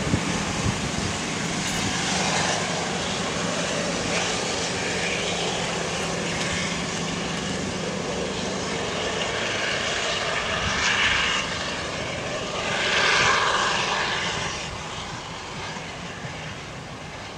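Alsthom diesel-electric locomotive D.4118 hauling a train: steady engine drone with rail noise, growing fainter over the last few seconds.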